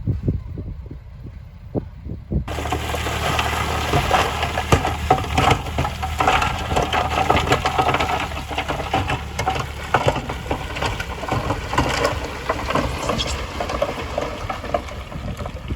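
Heavy diesel construction machinery running, with many clanks and rattles over the steady engine note. The sound changes abruptly about two and a half seconds in, from muffled to clearer and fuller.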